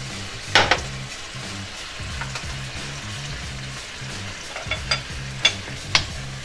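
Shrimp in freshly added heavy cream sizzling in a nonstick sauté pan over a gas flame while a utensil stirs it, with a few sharp clicks of the utensil against the pan, one about half a second in and three near the end.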